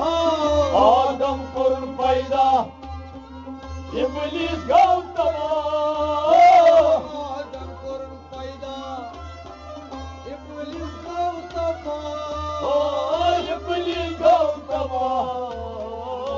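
Kashmiri Sufi folk music: a wavering melody line over a steady, repeating drum beat.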